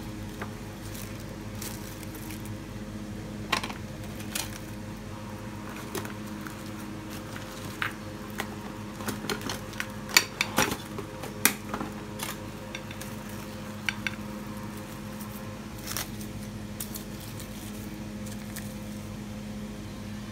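Plastic cling wrap being stretched over and pressed onto a glass bowl of cut fruit, crackling and clicking in scattered bursts, busiest about halfway through, over a steady low hum.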